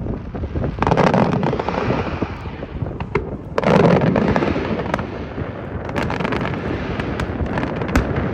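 Aerial fireworks bursting: two heavy booms about a second and three and a half seconds in, with dense crackling between them and a sharp crack near the end.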